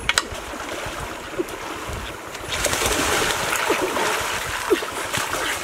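Heavy splashing of river water as a person wades and lunges through it after a duck, growing much louder about two and a half seconds in.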